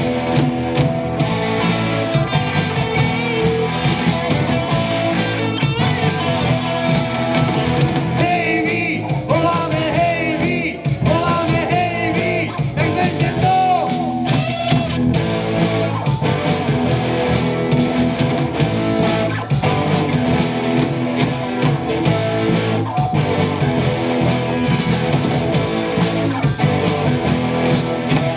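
Live rock band playing: electric guitars over a drum kit, loud and steady throughout.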